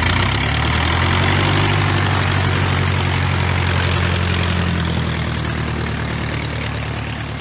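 Radial engine of a Polikarpov biplane fighter running steadily at idle on the ground, propeller turning, with a low, even engine note that grows slowly quieter.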